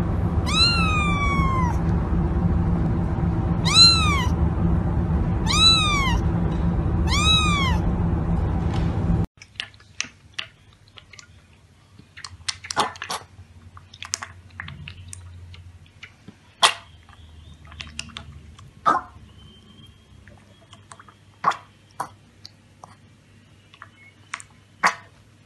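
A kitten meows four times, each a short meow arching in pitch, over a loud steady background noise. About nine seconds in the sound drops away to quiet, irregular wet clicks and slurps of a piglet lapping milk from a metal bowl.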